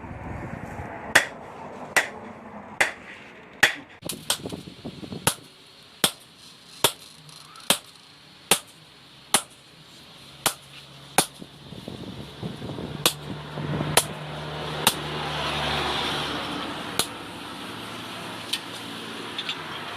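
Steady hand-hammer blows on a knife blade on an anvil, a little over one strike a second, each a sharp ringing clank. A low hum swells and fades midway through.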